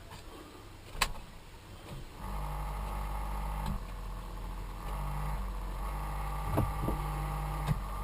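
A switch clicks about a second in, and about two seconds in a small soldering fume fan starts up and runs with a steady electrical hum and whine, a noise it is not supposed to make.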